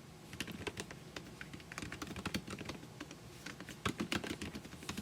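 Typing on a computer keyboard: quick, irregular key clicks that start about half a second in.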